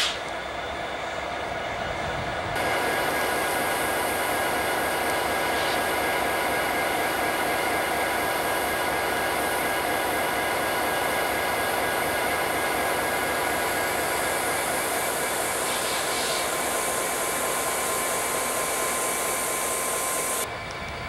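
A train's caboose cars rolling past for the first couple of seconds. Then, from about two and a half seconds in, diesel locomotives idle up close: an even, fan-like whir with faint steady whining tones that cuts off near the end.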